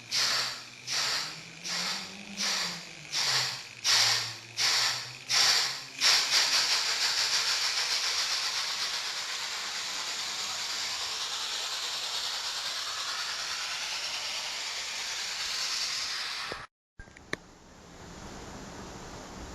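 Electronic steam-locomotive sound module in a wagon behind a Märklin BR 03 model, giving steam chuffs about one and a half a second, then a continuous steam hiss from about six seconds in. The hiss cuts off suddenly near the end, leaving a few faint clicks.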